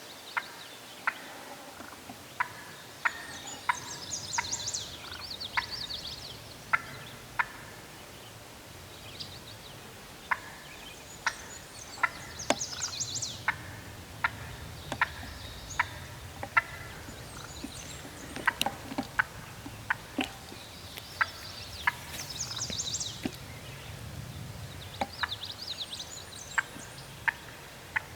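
Wild turkey hen calling: a long, irregular series of short, sharp clucking notes, with several brief bursts of fast, rattling notes higher in pitch.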